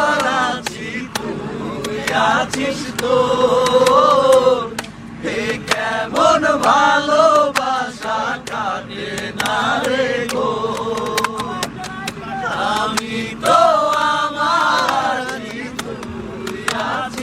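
A voice singing a slow melody in long, gliding phrases without clear words, over soft instrumental backing: a Bangla song.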